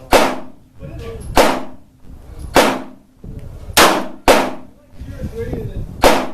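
Bersa Thunder Plus .380 semi-automatic pistol fired six times in slow aimed fire, a bit over a second apart, with two shots close together near the middle; each shot rings out and decays.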